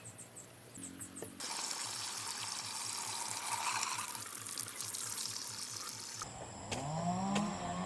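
Water running and splashing, a steady rushing that starts abruptly about a second and a half in. About six seconds in it cuts to a louder, low pitched sound that wavers up and down in pitch.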